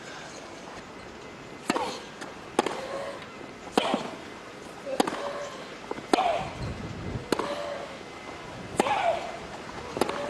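A tennis rally: about eight racket strikes on the ball, a little over a second apart, most of them with a player's grunt right after the hit.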